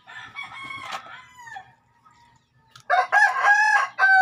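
A rooster crowing twice. The first crow is fainter and trails off about a second and a half in. The second is louder, starts about three seconds in and is still going at the end.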